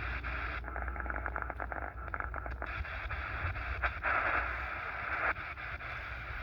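Shortwave radio receiver hissing with static between stations, over a low hum, with a rapid run of faint clicks from about half a second to two and a half seconds in as the band is tuned.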